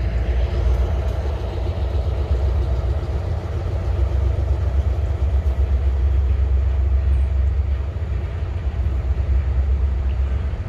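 Freight train going by, its diesel locomotive engine running steadily with a deep, low sound.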